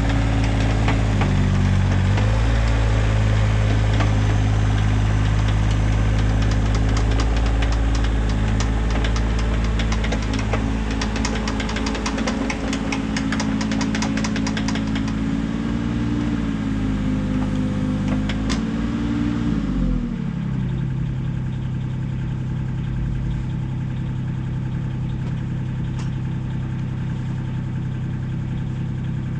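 Mini excavator's diesel engine running under load, its pitch dipping and rising as the machine works, with a fast rattle partway through. About 20 seconds in it drops to a steady idle.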